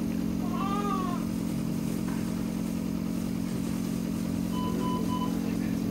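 Steady low hum of NICU equipment, with a newborn's brief whimpering cry about half a second in and a single short electronic beep near the end.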